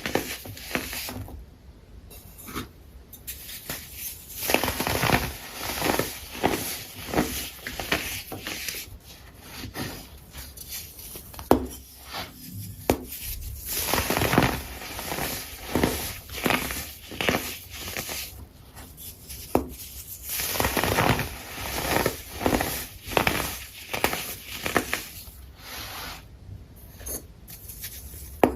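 Irregular crunching and crackling in short clusters of quick crunches, with brief pauses between them.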